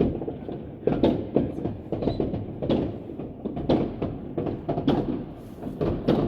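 Distant New Year's fireworks going off in a continuous irregular crackle of pops and bangs, with louder bangs about once a second.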